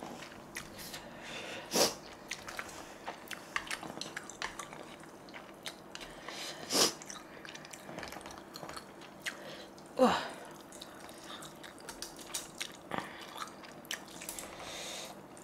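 Person eating instant ramen noodles up close: quiet chewing with many small wet clicks, and three louder mouth sounds about two, seven and ten seconds in.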